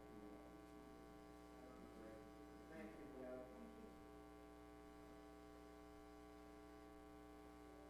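Near silence filled by a steady electrical hum, with faint voices briefly about three seconds in.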